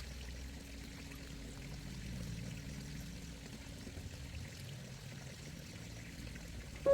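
Steady sound of flowing water, an even trickling hiss.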